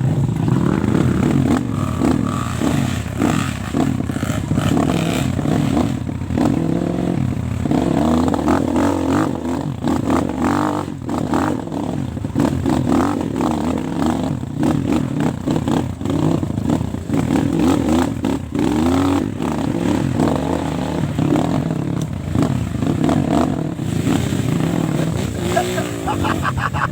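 Small single-cylinder trail motorcycle engine running and revving, its pitch rising and falling again and again.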